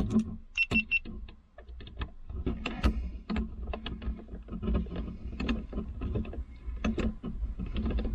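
A Torx screwdriver driving a screw into the rear-view mirror's mount to lock the mirror so it cannot wiggle. The driver gives many irregular small clicks and taps, with plastic scraping from the mirror and bracket being handled.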